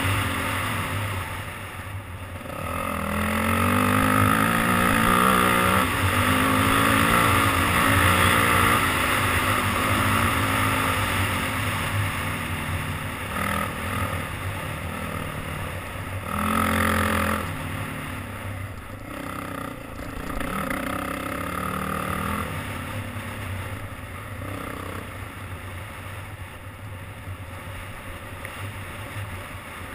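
Off-road dirt bike engine ridden along a trail, its pitch rising and falling as the throttle opens and closes. It is loudest over the first ten seconds, with a short hard pull about seventeen seconds in, then runs more quietly.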